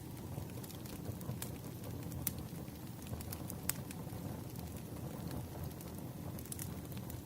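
Firewood burning. A steady low rumble carries sharp crackles and pops scattered through it, every second or so.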